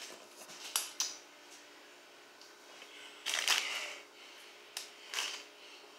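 Brown paper takeout bag rustling and crinkling as hands dig into it and pull out a paper-wrapped item, in several short bursts, the loudest a little over three seconds in.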